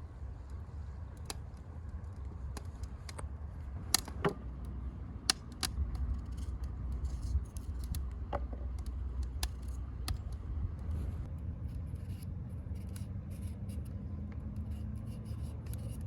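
Irregular sharp clicks and taps, a dozen or so and unevenly spaced, over a steady low rumble.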